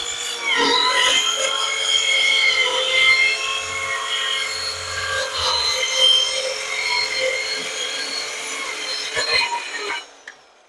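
Bauer corded compact circular saw running under load as its blade cuts through a sheet of plywood: a steady motor whine mixed with rough sawing noise. The sound stops near the end.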